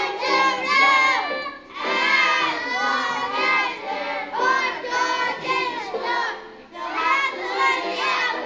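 A group of young children singing loudly together, close to shouting, in phrases with two short breaks between them.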